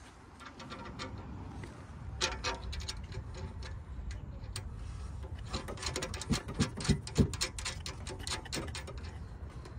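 Light metallic clicking and scraping as a bolt is turned by hand into a strut tower brace's mounting bracket, in scattered runs of small clicks, with a few heavier knocks about six to seven seconds in.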